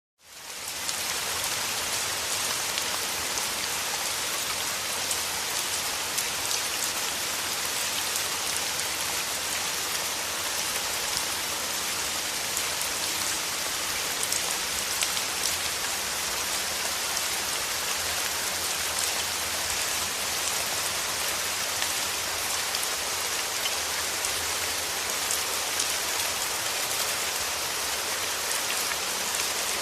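Steady rain falling: a dense, even hiss with a fine patter of drops, fading in over the first second.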